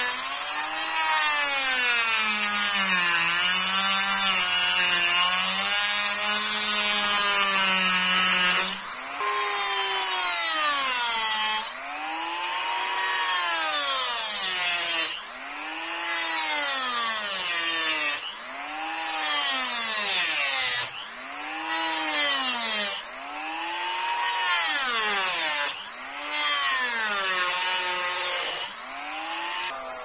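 Handheld rotary tool with a thin cut-off disc cutting black kydex sheath material: a high motor whine, fairly steady at first, then rising and falling in pitch over and over, about every two to three seconds.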